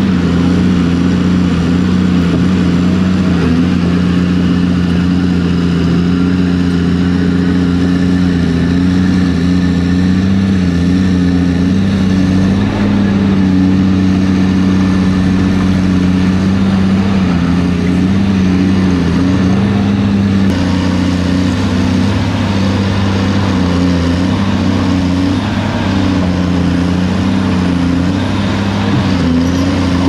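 Caterpillar 330C LN excavator's diesel engine running at working speed, a loud, steady drone whose pitch wavers a little as the hydraulics take load while the bucket digs.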